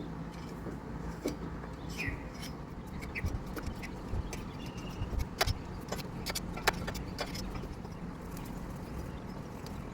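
Sharp metallic clicks and clinks of tools and brake hardware being handled during a brake pad job, a dozen or so, mostly in the middle stretch, over a steady low hum.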